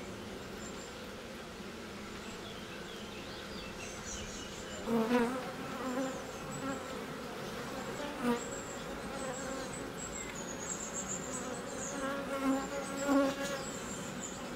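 Honeybees buzzing steadily over an open hive, the sound of a full colony on the comb. The buzzing swells louder briefly a few times, about five seconds in, around eight seconds and again near the end.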